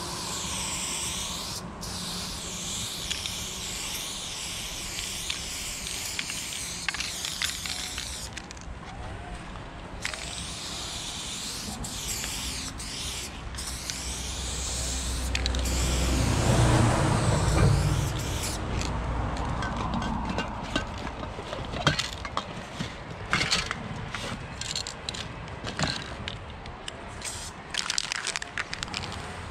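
Aerosol spray paint can fitted with a Montana Level 6 fatcap, hissing in long sprays as paint is laid on a wall, then in shorter bursts near the end. A low rumble swells and fades about halfway through and is the loudest sound.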